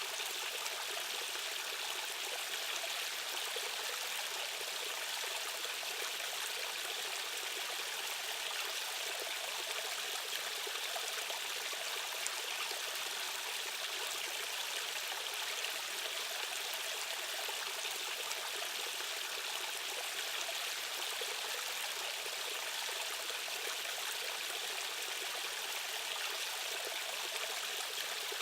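Rushing stream water running steadily over rocks, a continuous even hiss and splash of the current.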